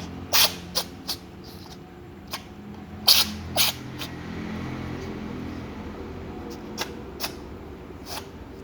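A cat chewing fried chicken: irregular sharp crunches, several close together in the first few seconds and a few more near the end, over a steady low hum.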